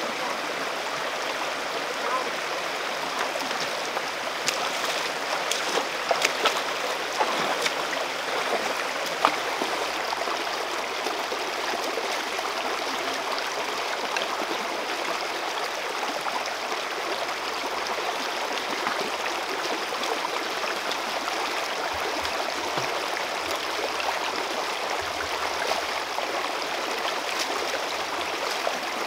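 Shallow rocky stream flowing steadily over stones, a constant rush and babble of water. A few brief sharp sounds stand out about five to nine seconds in.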